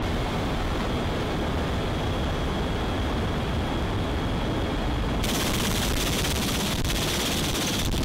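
Steady aircraft engine noise heard from inside the cabin during takeoff, with a thin high whine over it. About five seconds in it cuts abruptly to a brighter, hissier rushing noise.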